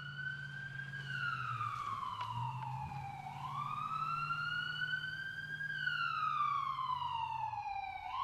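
Wailing siren, its pitch sliding slowly up and down, each rise or fall lasting about two seconds, over a low steady hum.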